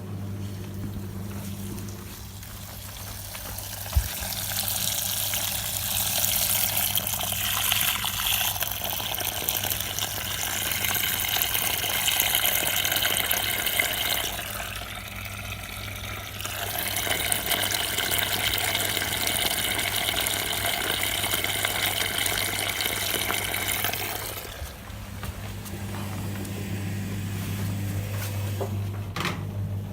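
Whirlpool washing machine taking in water: a rushing hiss of water pours into the drum in two long spells, the first stopping about halfway through and the second cutting off near the end. A steady low hum from the machine runs underneath.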